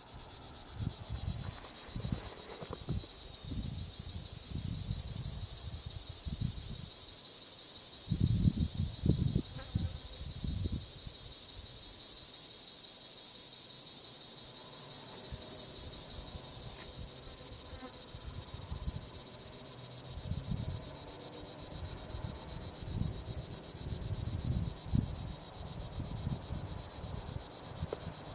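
Cicada singing: a continuous high-pitched buzz made of very rapid pulses, swelling louder about three seconds in and then holding steady.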